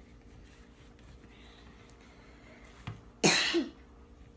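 A single short cough about three seconds in, just after a faint click; otherwise low room noise.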